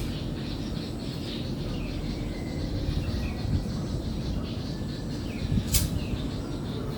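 Small birds chirping faintly and sporadically over a steady low rumble, with one sharp click about six seconds in.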